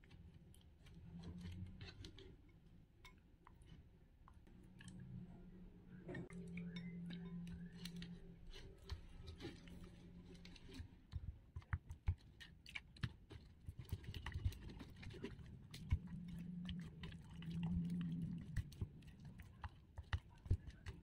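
Glue slime being stirred with a plastic spatula in a glass bowl: faint wet, sticky clicks and scraping against the glass. The clicks grow denser and louder from about halfway through as the slime activator thickens the glue.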